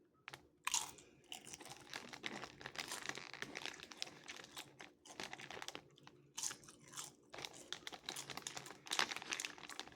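Close-up chewing and crunching of Doritos chips with taco filling, mixed with a chip bag crinkling; irregular crackles throughout.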